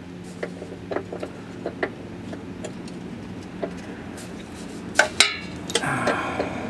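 Light metallic clicks and taps of a hitch fish wire and bolt knocking against the inside of the car's frame rail, with two sharper clicks about five seconds in. A steady low hum runs underneath, and a vehicle engine grows louder near the end.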